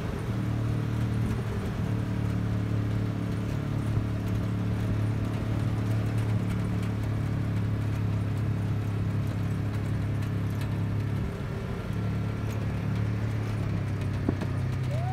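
Vehicle engine running at a steady speed, a low even hum that drops briefly about eleven seconds in.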